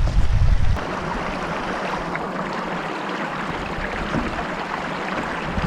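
Steady rushing of a river's flowing water, heard up close. A low rumble on the microphone covers it for the first second or so, then stops.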